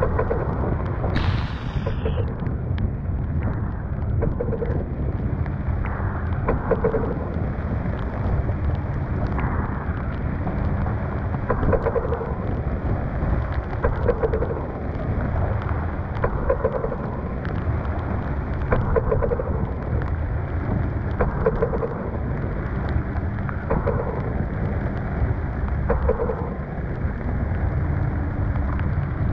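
Storm wind and rain buffeting a sailboat under way in heavy seas: a dense, steady rumble and hiss that surges about every two and a half seconds.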